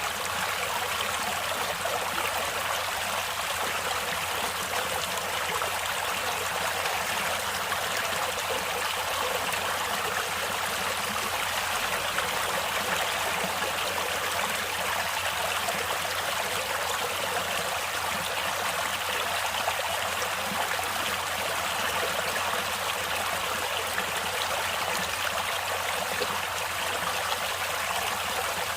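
Natural stream water flowing steadily: an even, unbroken rush and trickle of running water.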